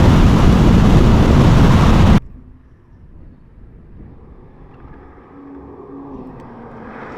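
BMW M2's 3.0-litre twin-turbo straight-six running loud and close for about two seconds, then cutting off suddenly to a faint, distant engine note that slowly grows louder.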